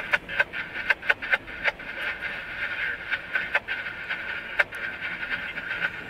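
Railroad scanner radio static starting suddenly, a narrow-band hiss with many sharp crackling pops: the squelch opening as a trackside defect detector keys up its transmission.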